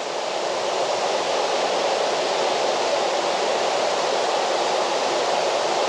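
Steady rushing of a waterfall, water falling and splashing without a break.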